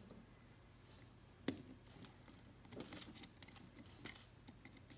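Faint clicks and taps of plastic LEGO pieces being handled, with a sharper click about a second and a half in and another near four seconds.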